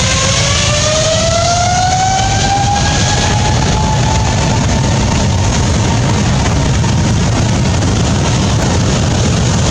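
Jet airliner engine running at high power, its whine rising in pitch and levelling off about four seconds in, over a steady loud rush of engine noise.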